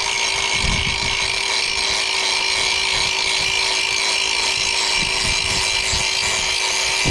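Angle grinder running steadily at full speed, with a constant motor whine over a harsh grinding hiss, as it touches up the cutting edge of a lawn mower blade.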